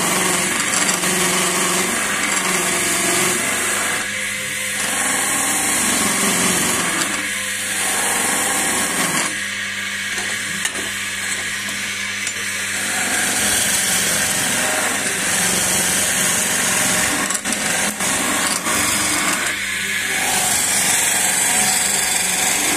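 Skew chisel cutting a spinning wooden walking-stick blank on a wood lathe, over the lathe's steady motor hum. The hiss of the cut swells and fades every few seconds as the chisel is worked along the stick.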